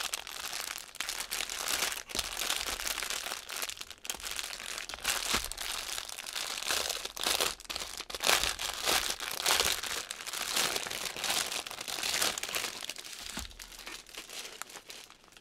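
Clear plastic wrap crinkling and crackling continuously as it is pulled off a rolled diamond-painting kit and its bags of drills by hand. It is loudest in the middle and eases off near the end.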